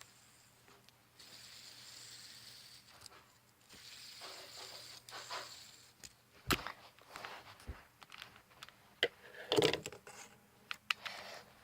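Fidget spinner whirring on its bearing for a few seconds, then a series of clicks and knocks, with the loudest cluster about two-thirds through.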